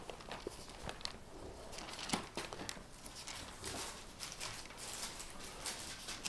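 Pages of a Bible being leafed through: faint, irregular paper rustles and soft flicks.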